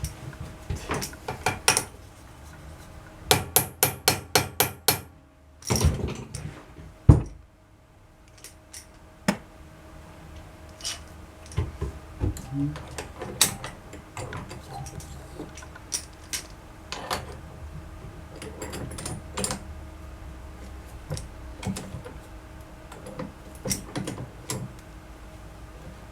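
Workshop tool and part handling on metal bar clamps: scattered sharp knocks and clinks, with a quick run of about eight taps a few seconds in, over a faint steady hum.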